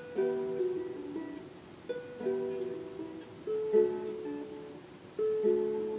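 Small harp being plucked: slow chords and single notes, each ringing and fading away, with a new group of notes every second or two.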